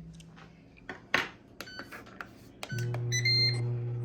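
A few clicks and knocks, then an air fryer starting up: short electronic beeps from its control panel and the steady hum of its fan motor, which starts about two-thirds of the way in and keeps running.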